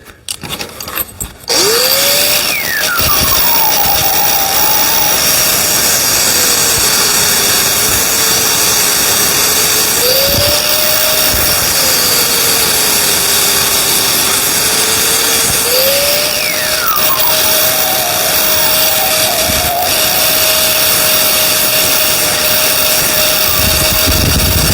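Angle grinder starting up and cutting steel: its motor pitch sags twice for several seconds under load and recovers, over a steady hiss of grinding. It then runs on at full speed.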